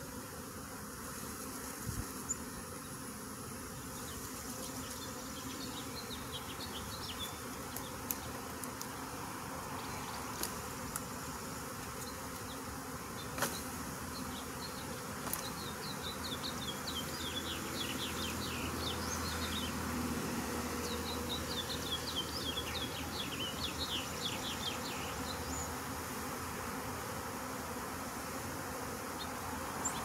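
Swarm of honeybees buzzing steadily around an open hive box as the clustered swarm moves down off its branch into the hive.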